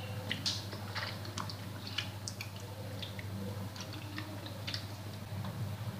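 Wet squelching and small splashes as a tomato is squeezed and crushed by hand in a bowl of tamarind water, a quick irregular run of soft clicks and squishes.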